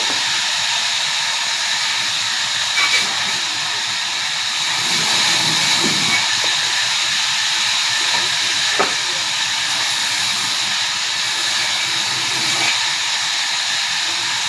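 Large sawmill machine running steadily: a continuous hissing noise with a faint high whine and a few light clicks.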